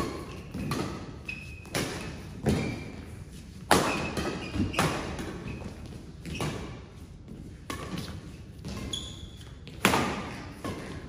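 Badminton doubles rally: rackets smacking the shuttlecock back and forth, sharp hits every second or two that echo around the hall, with short high squeaks of shoes on the court between shots.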